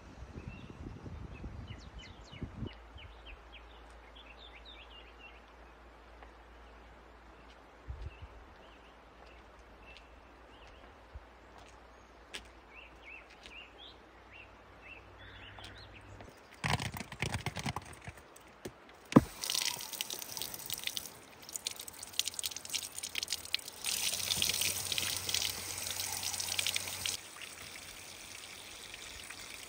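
Water running from an outdoor tap and splashing onto oranges being rinsed under it, loud for about seven seconds from just past the middle, then dropping to a softer trickle near the end. A sharp knock comes just before the water starts, with a short clatter a couple of seconds before that.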